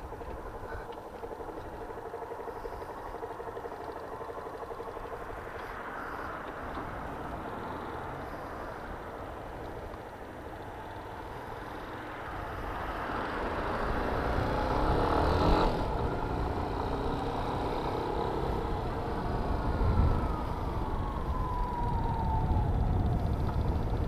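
Yamaha Fazer 250's air-cooled single-cylinder engine idling at a stop, then pulling away with the revs rising about halfway through and dropping off abruptly a few seconds later, while cars pass. A falling whine comes near the end. The owner says this engine makes a tapping "tec-tec" that he can't place, whether valves or piston.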